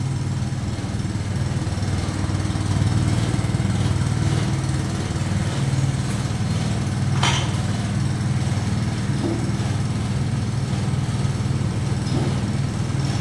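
Honda GX petrol engine running steadily under load, driving a coconut-milk pressing machine. A single short sharp click about seven seconds in.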